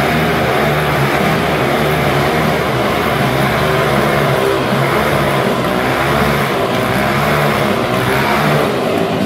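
Two motorcycle engines running hard and loud together as the riders circle inside a small steel-mesh globe of death, the noise easing slightly near the end.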